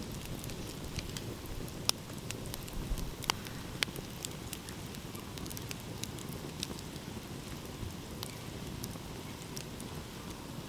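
Wood fire crackling, with scattered sharp pops; the loudest come about two, three and four seconds in. Under it runs a steady low rush of ocean waves.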